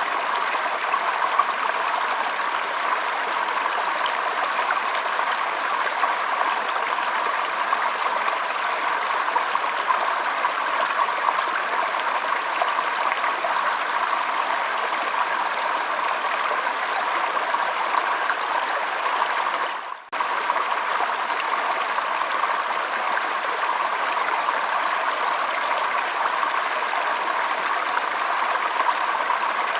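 Water flowing steadily with an even rushing sound. It drops out for a split second about two-thirds of the way through, then carries on unchanged.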